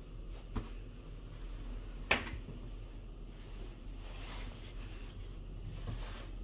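Faint handling sounds: clothing rustling and a few small clicks, with one sharp click about two seconds in.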